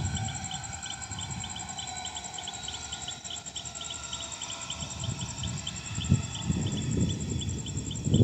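Insects chirping steadily: a fast-pulsing high trill over a regular chirp about four times a second, with low rumbling gusts of wind on the microphone that swell near the end.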